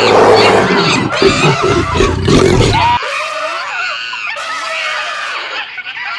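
Loud roaring that cuts off abruptly about three seconds in, followed by quieter, higher-pitched wavering cries.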